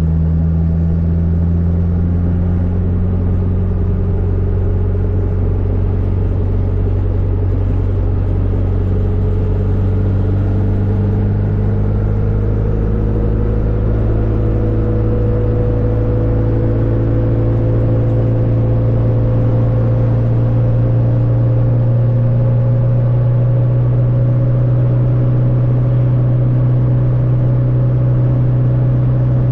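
Fiat 600 with a swapped 1.6-litre engine running at highway speed: a steady, loud engine drone with one tone rising slowly and smoothly as the car gradually gains speed.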